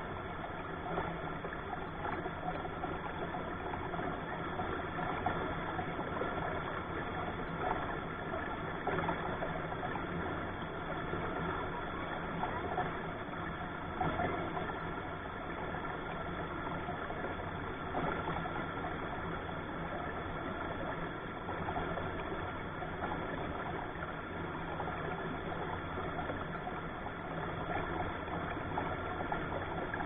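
Shallow rocky stream rushing over and around boulders close to the microphone, a steady rushing noise with a low rumble.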